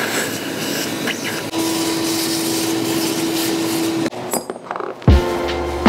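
Shop vacuum sucking air through a hose nozzle held against a CNC tool holder and collet nut to clear out dust: a steady rush of air, with a steady tone joining it about a second and a half in. The suction cuts off about four seconds in, and music with a heavy bass starts near the end.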